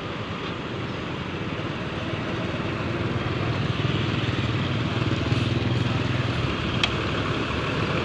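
Intercity bus engine and road noise as a bus passes, the low engine hum growing louder about halfway through, with a single sharp click near the end.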